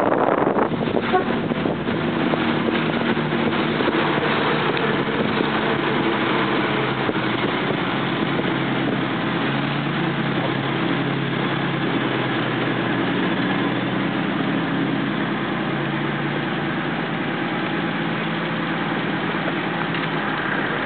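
Lancia Aurelia B21's V6 engine running steadily as the car drives slowly, heard from inside the car, over a steady hiss.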